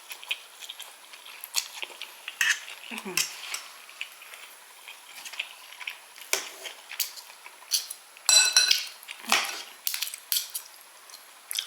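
Cutlery clinking and scraping against a dish while eating, as a string of scattered short clicks, with one brief squeak about eight seconds in.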